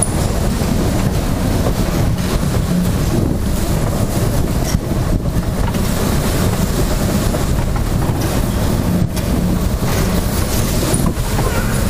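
Steady wind rumble on the microphone as it is carried round in a spinning fairground ride car, with the ride's low running rumble underneath.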